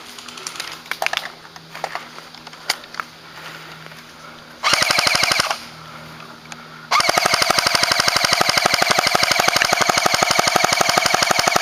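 Battery-powered airsoft automatic rifle firing on full auto: a short burst of about a second, then after a pause a long burst of rapid, evenly spaced shots lasting four to five seconds. A few scattered single clicks come before the bursts.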